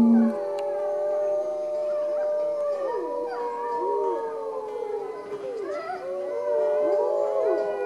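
Several wolves howling together, long overlapping howls held at different pitches, with short quick dips and rises in pitch among them.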